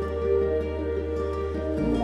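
Background music: a soft instrumental track of held notes over a steady bass, with the bass moving to a new note near the end.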